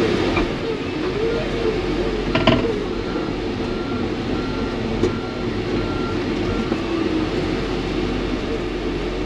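Komatsu PC88 excavator's diesel engine running under hydraulic load as the boom is raised high, its pitch wavering. There is a knock about two and a half seconds in and a fainter one near the middle.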